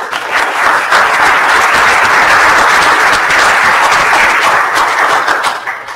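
Audience applauding: the clapping swells within the first second, holds steady, then dies away near the end.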